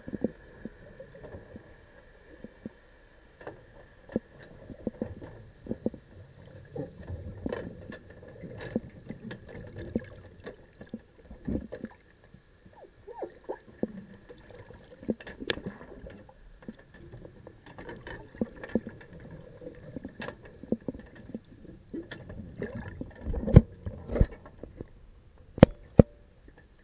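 Underwater sound heard through an action camera's waterproof housing: irregular muffled knocks and clicks over a low water murmur, with a faint steady whine throughout. A few louder knocks come near the end.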